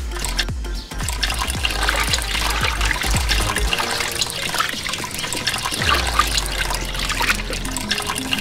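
A stream of water pouring over a whole fish held in the hands and splashing into a plastic tub of water, starting about a second in, with background music.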